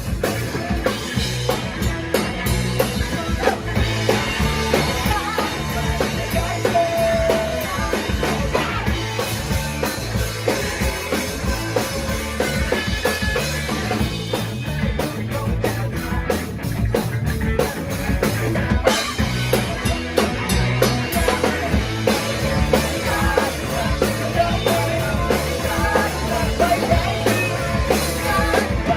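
Live rock band playing loud, fast pop-punk: electric guitars, bass and a driving drum kit, with sung vocals at times.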